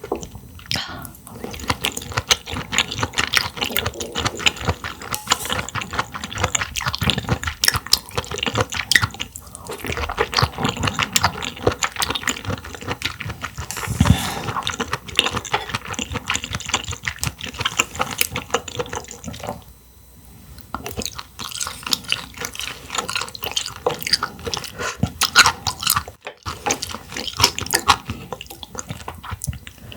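Close-miked eating of Hangdal clams: wet chewing and slurping, with a dense run of sticky, juicy mouth clicks that eases off briefly about twenty seconds in.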